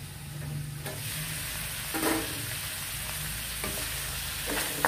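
Mixed vegetables sizzling in a metal wok while a metal utensil stirs them, scraping and clinking against the pan a few times, over a steady low hum.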